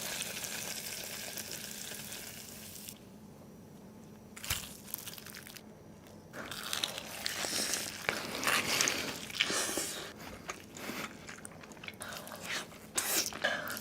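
Biting into and chewing a crunchy fried chicken sandwich, with dense crisp crunches from about six seconds in and scattered crunches after. A steady hiss fills the first few seconds.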